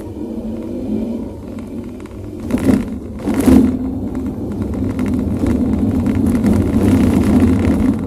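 Toyota Vios driving, a steady road and engine rumble heard from inside the cabin, broken by two short knocks about two and a half and three and a half seconds in. These are the 'tok-tok' knocks from the rear brakes while braking, which the owner traces to dirty rear drum brake shoes catching on the drum.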